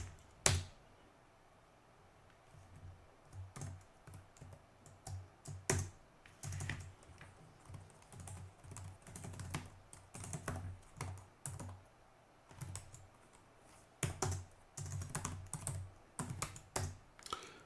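Typing on a computer keyboard: irregular runs of keystrokes with short pauses between commands, and a couple of harder strokes at the very start.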